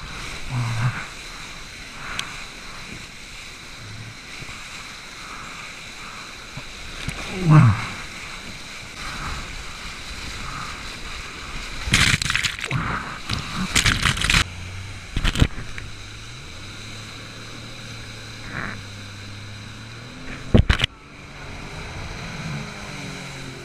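Rushing whitewater of a river standing wave streaming past a camera held low at the water's surface, with loud splashes as water breaks over the camera in a cluster about halfway through and again near the end.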